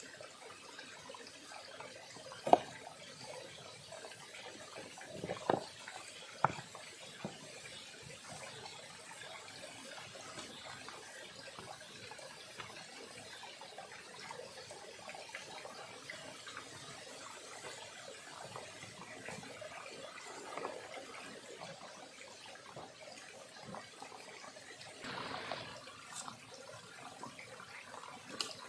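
Small river running steadily with a trickling, watery sound, broken by a few sharp clicks or knocks.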